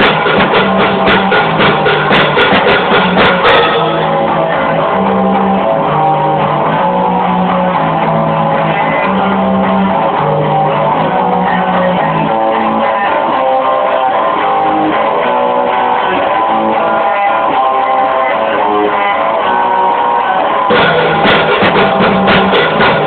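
Punk rock band playing. The drums drop out about four seconds in, leaving guitar playing a stepping melodic line, and the full band with drums comes back in near the end.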